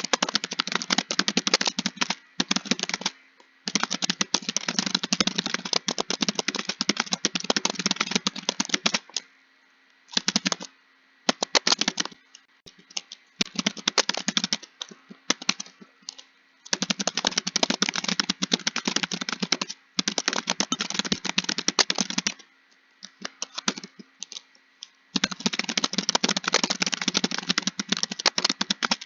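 Fast typing on a computer keyboard: dense runs of key clicks, broken by short pauses of about a second and a longer pause of a few seconds towards the end.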